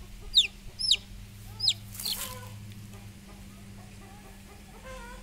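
A young chick held in the hand peeping: three loud, high, sharply falling peeps in the first two seconds, a brief rustle just after, then a fainter call near the end.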